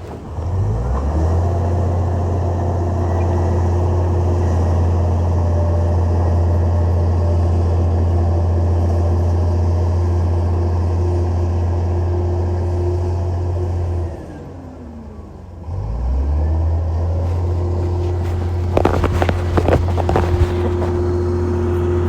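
Heavy construction machine's diesel engine running steadily at high revs under load. About two thirds of the way through it drops to a low idle for a second or two, then revs back up. A few sharp metallic clanks follow near the end.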